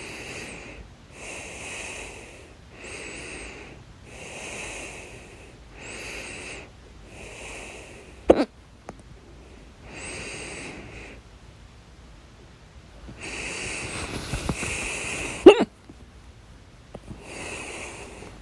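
A person hiccuping loudly twice, about eight and fifteen seconds in, each a sudden sharp gulp, between steady audible breaths in and out.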